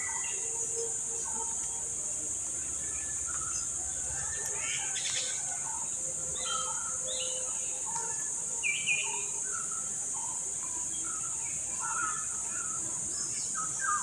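Steady high-pitched drone of insects with scattered short bird chirps, and a louder pair of chirps about nine seconds in.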